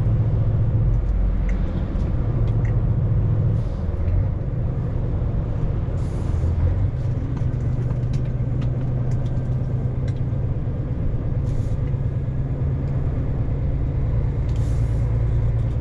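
Steady drone of a vehicle engine and road noise while driving, the engine note shifting slightly about one and four seconds in, with a few faint scattered clicks.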